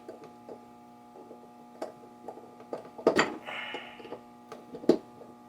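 Small clicks, taps and knocks of wiring parts and tools being handled, with a louder knock a little after three seconds and again near five seconds and a brief scrape between them, over a steady background hum.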